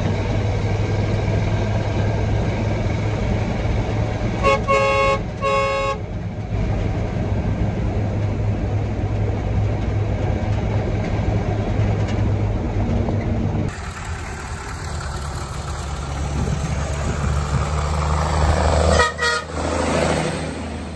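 A vehicle engine running steadily, with a few short horn toots about four to six seconds in. After a cut, there is more engine noise and a quick series of horn toots near the end, then the sound starts to fade.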